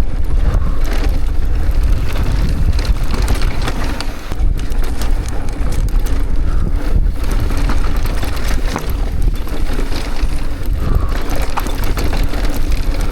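Mountain bike descending a dry, loose, sandy dirt trail: steady wind rumble on the microphone with tyres running over loose dirt and frequent short rattles and knocks from the bike over bumps.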